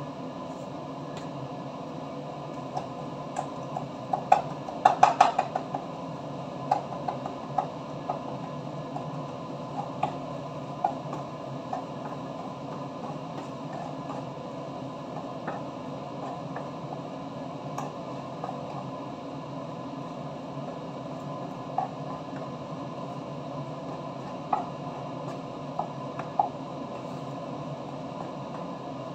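Wooden spatula knocking and scraping against a frying pan as sauce is stirred, with a quick run of taps about four to six seconds in and scattered single knocks after that. A steady background noise runs underneath.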